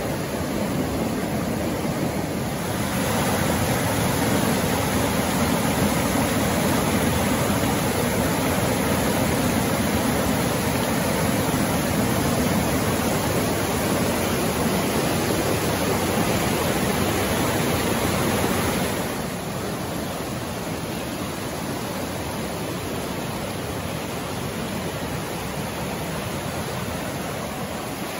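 Flood-swollen mountain creek rushing and churning over a fallen log and rocks, a steady rush of white water. It grows louder a few seconds in and drops back about two-thirds of the way through.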